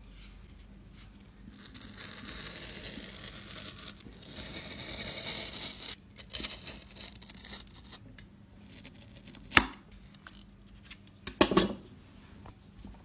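Knife blade slicing through wool yarn wound on a spool: a rasping scrape for several seconds, then scattered clicks. Near the end comes a sharp knock, then a cluster of knocks.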